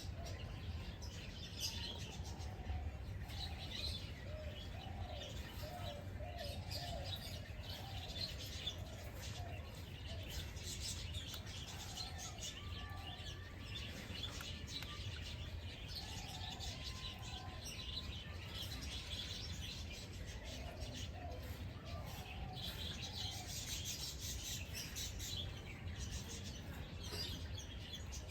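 Several birds chirping and calling without a break, with lower, wavering calls here and there, over a low steady rumble.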